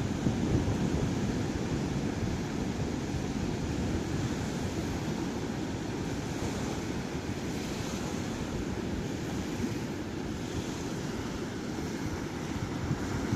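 Sea waves breaking slowly on the shore, a steady wash of surf whose hiss swells twice midway, with low wind rumble buffeting the microphone.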